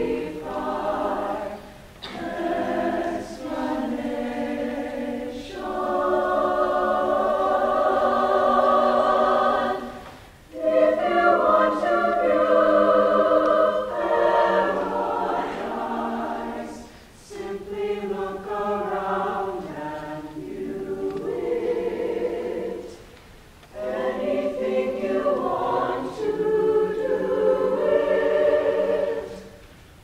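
Mixed-voice concert choir singing sustained chords in long phrases, with brief breaks between phrases about ten seconds in and again a little past twenty seconds.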